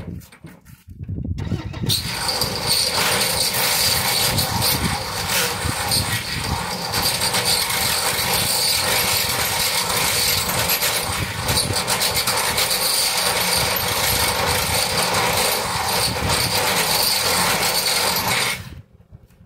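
Handheld electric power tool running continuously against the galvanized steel frame of a wall panel. It comes up about two seconds in, holds a steady, harsh, hissing run and cuts off abruptly shortly before the end.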